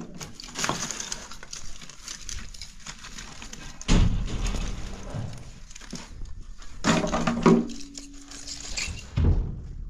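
Pieces of dry bark and scrap wood clattering and knocking as they are picked up and tossed into a wheelbarrow, in several separate bursts, the heaviest thud about four seconds in.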